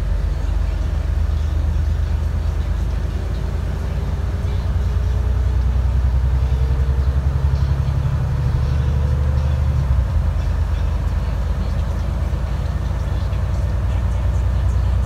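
Engine and drivetrain of an Alexander Dennis Enviro400 MMC double-decker bus running steadily as it drives, heard from inside the cabin. A faint rising whine comes in from a few seconds in, and the low engine note changes about ten seconds in.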